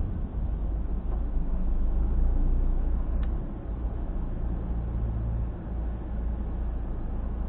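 Low, steady rumble of a car driving, heard through a dashcam, with a short click about three seconds in. The rumble is an abnormal noise from around a tyre that comes periodically with road speed, which the uploader puts down to a failing hub bearing.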